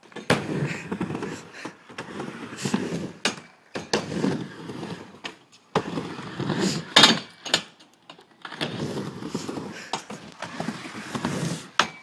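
Skateboard wheels rolling back and forth across a half-pipe ramp: a rumble on each pass, with sharp clacks as the board meets the metal coping.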